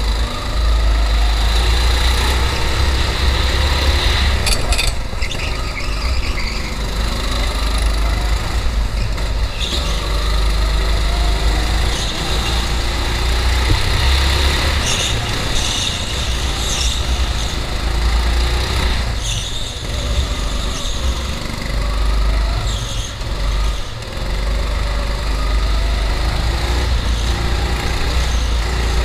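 Go-kart engine heard from on board while lapping, its pitch repeatedly rising along the straights and dropping back into the corners, over a heavy low rumble. Tyres squeal briefly in several of the turns.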